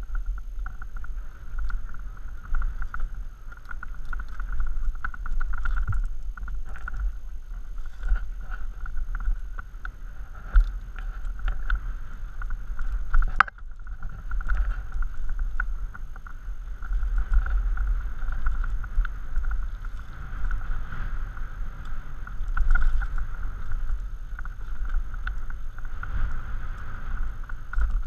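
Mountain bike rolling fast down a rocky dirt singletrack, heard from a helmet-mounted camera: deep wind buffeting on the microphone, tyre and frame rumble with frequent small rattles and clicks over stones, and a steady high buzz. A sharp knock about halfway through.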